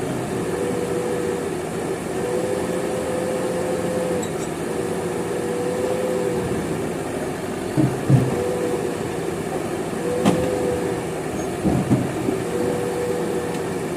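JCB backhoe loader's diesel engine running steadily, with a whine that comes and goes as the hydraulics work. A few sharp knocks fall in the second half.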